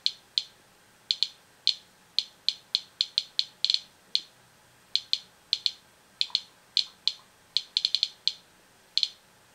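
Inspector Alert Geiger counter clicking at random, uneven intervals, about three clicks a second and sometimes several in a quick cluster. Each click is one detected count, and the rate is around 200 counts per minute from a sealed package of dried kelp.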